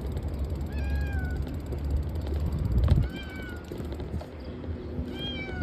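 A cat meowing three times in short, high, slightly falling meows, over a steady low rumble from the ride. A single knock comes about three seconds in.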